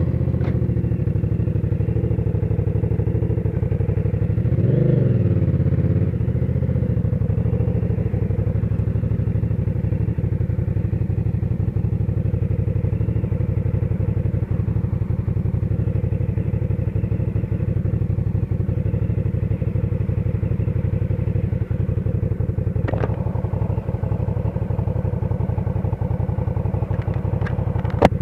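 Hyosung GV650's 650 cc V-twin engine running just after being started, with a short blip of revs about five seconds in, then idling steadily. Heard through a lapel mic tucked inside the rider's helmet padding, with a couple of sharp clicks, one near the end.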